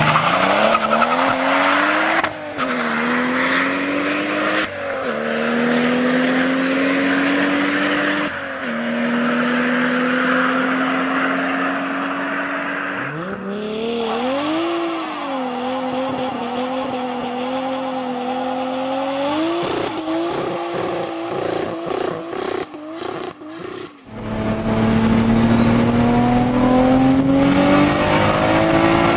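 Toyota Supra straight-six engines in three clips. First a car accelerating hard through the gears, its note climbing and dropping at three gear changes. Then a 620 bhp 2JZ Supra doing a burnout: revving with tyre squeal, choppy near the end. Then, from inside an HKS T51R KAI turbo Supra under full acceleration, a climbing engine note with a rising whistle.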